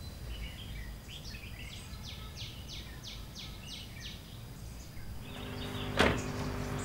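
Outdoor background noise with a bird calling a quick run of about six descending notes in the middle. A steady hum comes in after about five seconds, and a single sharp knock sounds about six seconds in.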